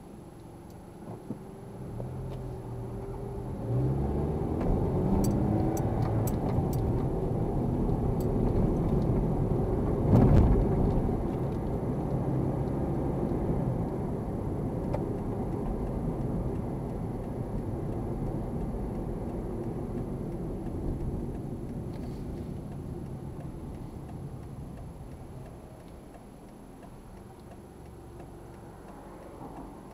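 Car heard from inside the cabin pulling away and speeding up, its engine note rising about three seconds in. Then a steady engine and road noise, with a brief loud swell about ten seconds in, easing off over the last few seconds.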